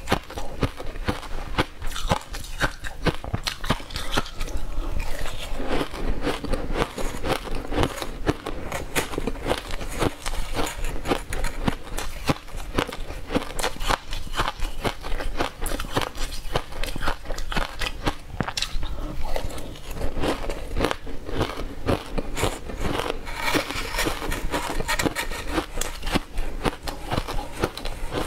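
Close-up crunching and chewing of mouthfuls of shaved ice: a continuous rapid run of crisp crunches and crackles.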